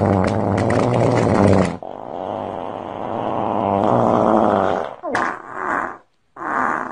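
Long, loud farting with a low buzzing rasp; it breaks off about two seconds in, starts again, then ends in two short bursts near the end.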